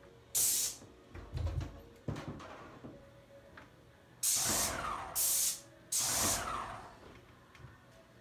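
Aerosol spray paint can spraying in four short hissing bursts, three of them close together in the second half, with a low bump of handling or the ladder about a second and a half in.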